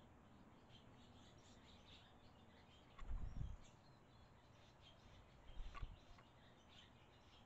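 Faint, sparse chirps from barn swallows at their mud nest over a near-silent background, with two brief low rumbles, one about three seconds in and one just before six seconds.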